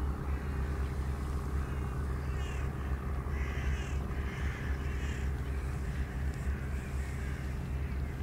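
Crows cawing, a run of short, harsh calls repeated about once a second, over a steady low hum.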